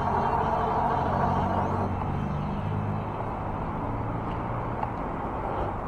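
Steady riding noise from an e-bike in motion, with road traffic running alongside. It eases slightly a little before halfway through.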